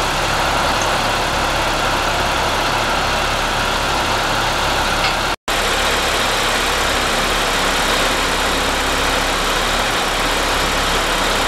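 Caterpillar 3126 diesel engine of a Ford F650 truck idling steadily; the sound drops out for an instant about five seconds in.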